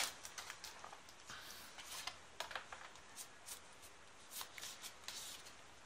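Pokémon trading cards being handled and fanned out in the hand: faint, scattered light clicks and soft slides of card on card.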